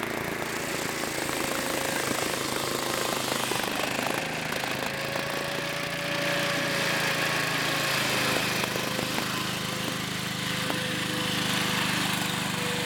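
Gasoline ice saw running steadily: a 15-horsepower Briggs & Stratton engine driving a 24-inch circular blade through lake ice, with a steady hiss as ice chips spray from the cut. Its engine note shifts slightly about eight seconds in.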